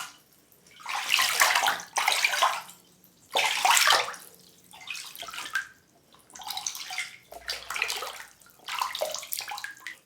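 Water rushing and splashing in repeated bursts about a second long, with short quiet gaps between them rather than a steady flow.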